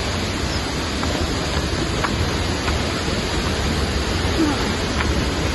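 Steady rush of falling water from a nearby waterfall, an even, unbroken noise.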